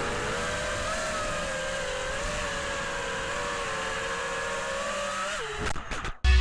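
5-inch FPV quadcopter's Emax RSII 2306 2600KV motors and HQProp 5043 propellers buzzing in flight, a steady whine that wavers in pitch with the throttle. About five and a half seconds in the whine drops in pitch and cuts off, followed by a few sharp clicks.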